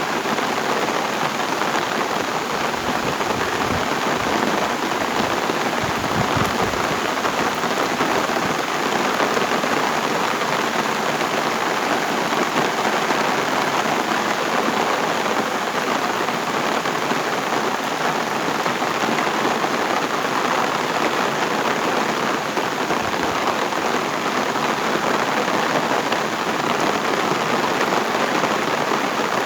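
Heavy rain pouring down, a steady, even hiss of falling water.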